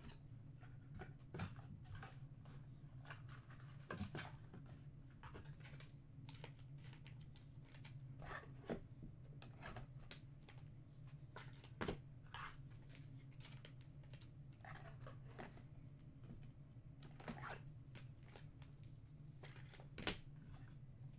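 Quiet handling of trading cards and their packaging: scattered light clicks, rustles and crinkles at irregular intervals over a low steady hum.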